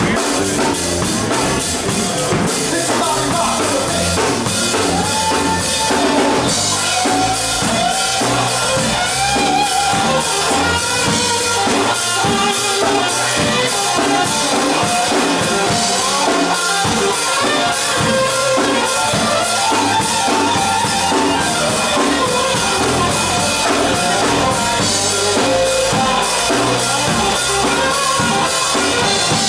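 A band playing rock music, the drum kit keeping a steady beat under a wavering melody line.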